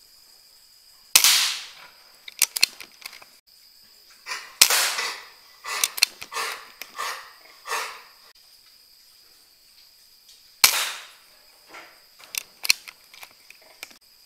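Three shots from a PCP air rifle, about 1, 4.5 and 10.5 seconds in, each a sharp crack that trails off, followed by a run of smaller clicks and rattles.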